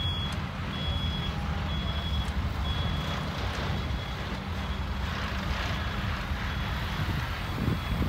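Loaded dump truck reversing: its diesel engine runs steadily while a reverse alarm beeps about once a second.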